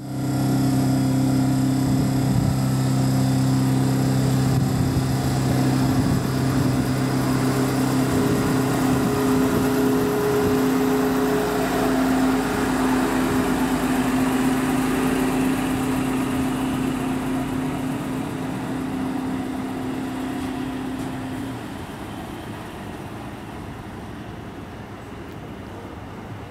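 Diesel passenger train at a platform, its engine running with a steady low drone and pitched hum. The drone fades and stops about 21 seconds in, leaving a quieter background.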